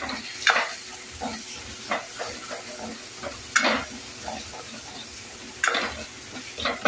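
A metal ladle stirring and scraping tomato masala around a steel kadhai, with several sharper scrapes against the pan, the loudest about half a second, three and a half and nearly six seconds in. Under it the masala sizzles steadily as it fries in oil.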